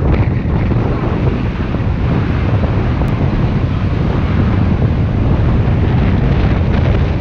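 Wind buffeting the microphone on the bow of a motor yacht out on open water: a loud, steady, low rushing rumble mixed with the wash of the sea.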